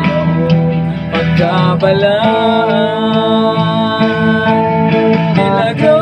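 Male voice singing in Cebuano over a strummed guitar, holding one long note with a slight waver through the middle.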